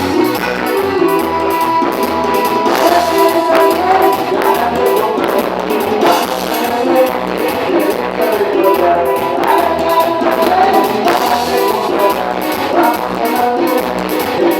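Band music with guitar, brass and drums playing to a steady beat.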